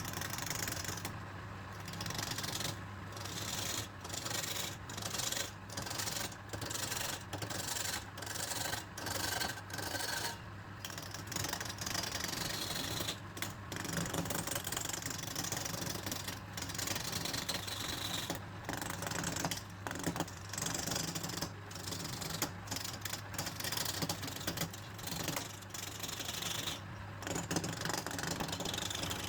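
Woodturning lathe running with a steady motor hum while a tool works the spinning wood, a rasping hiss broken up into repeated passes about a second long.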